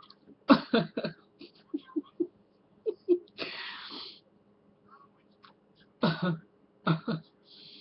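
A woman's voice making short non-word vocal sounds in brief bursts, with a breathy exhale of about a second in the middle.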